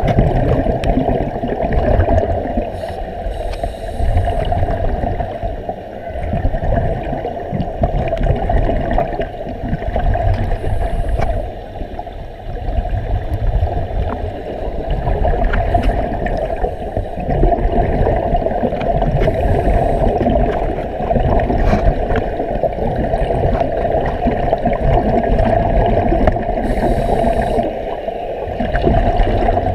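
Muffled underwater sound through a camera's waterproof housing: a steady gurgling rumble of air bubbles streaming up from helmet divers' air supply and water moving past the housing, with faint brief hisses every several seconds.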